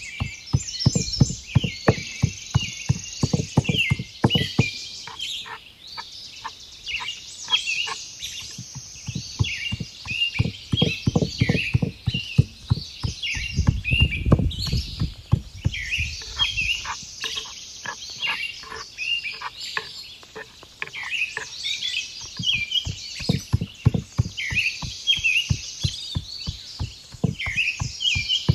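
Quick, repeated knife chops on a cutting board, about three or four strokes a second in bursts. Songbirds chirp and twitter throughout. A low rumble swells and fades near the middle.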